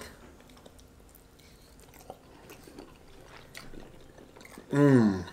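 A person quietly chewing a bite of vegan curry 'beef' stick, with faint small mouth clicks. Near the end comes a loud appreciative 'mmm' sliding down in pitch.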